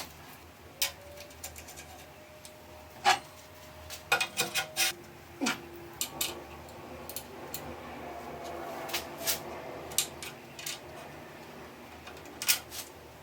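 Metal parts of a wood-lathe steady being handled and adjusted: irregular clanks and clicks, some with a short metallic ring, the loudest about three and four seconds in. Between them comes a few seconds of metal rubbing and scraping.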